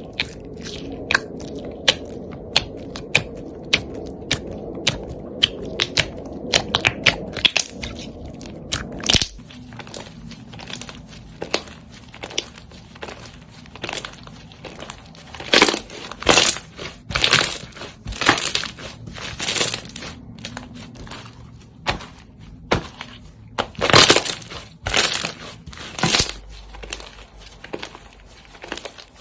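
Slime being squeezed and pressed by hand, giving rapid sharp crackles and pops, with longer, louder crunching squelches in the second half. A low steady hum underneath stops about a third of the way in.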